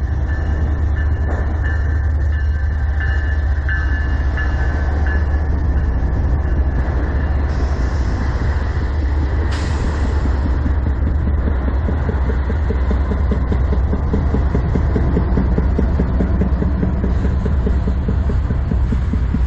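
A freight train's GE diesel-electric locomotives passing close by: a heavy, steady rumble of the engines and wheels, brightening about ten seconds in as the trailing units go by. Freight cars follow near the end, their wheels clattering over the rail joints.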